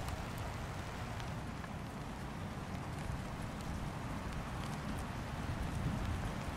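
Steady rain falling, with faint scattered drop ticks over a low, even rumble.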